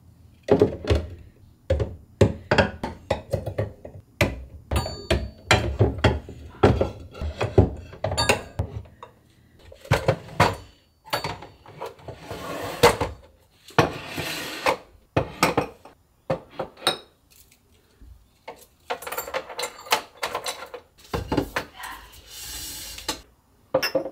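Ceramic and glass dishes and decor pieces knocking and clinking as they are handled and set down on shelves. Irregular, many separate knocks, with a few longer shuffling sounds in between.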